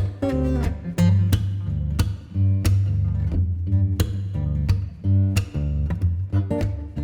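Background music: plucked guitar notes over a steady bass line, with a regular beat of about three notes a second.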